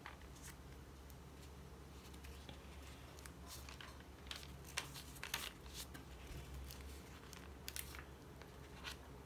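Faint paper rustles and crinkles as the painted, collaged pages of a Hobonichi Techo Cousin journal are turned by hand, clustered in the middle and near the end, over a low steady hum.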